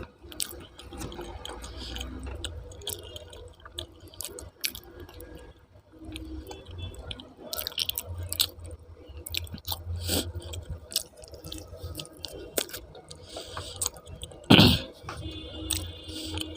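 Close-miked chewing and wet mouth sounds of someone eating aloo paratha with dum aloo and raita, with small smacks and clicks throughout. There is one louder, sharper sound about fourteen and a half seconds in.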